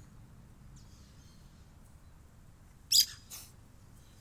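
Parakeet giving a short, sharp double chirp about three seconds in, with a faint chirp earlier.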